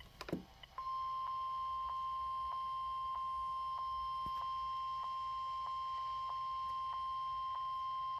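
Weather radio warning alarm tone, the single steady 1050 Hz beep that signals a severe weather warning broadcast, starting about a second in after a brief click and holding unbroken. Faint regular ticks sound under it, about one every 0.6 seconds.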